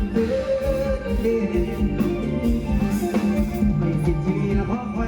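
A live band playing a song, with a singer over guitar and a steady drum beat.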